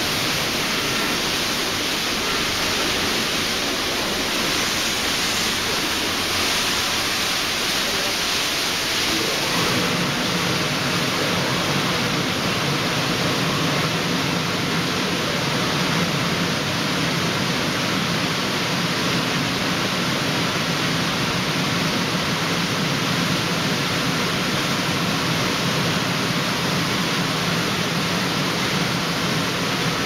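Automatic car wash machine running: water spraying and rotating brushes scrubbing a car, a steady rushing noise. About ten seconds in, a low motor hum joins it.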